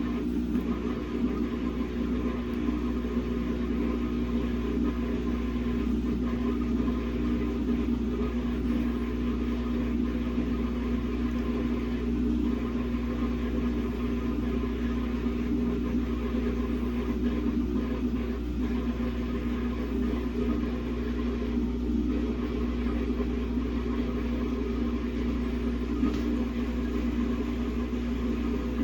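Samsung WA50R5200AW washing machine running with a steady motor hum, trying to spin a single pair of pants, a very unbalanced load.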